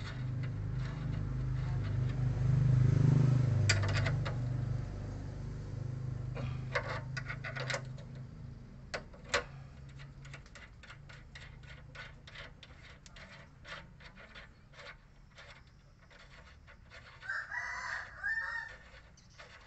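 Short metal clicks of a spanner working the stabilizer link nut on a Ford EcoSport's front suspension, several a second in the second half. A rooster crows, and a low hum swells and fades over the first several seconds.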